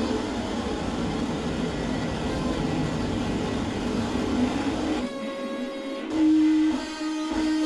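Experimental chamber music for contrabassoon, viola and Korg Kaossilator: a dense, noisy drone with a low rumble that cuts off suddenly about five seconds in. It gives way to held pitched tones, a higher one and then a lower, louder one.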